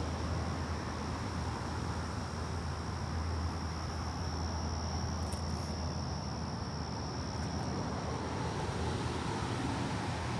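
Evening insects, crickets, chirring in a steady high-pitched drone, over a low steady hum.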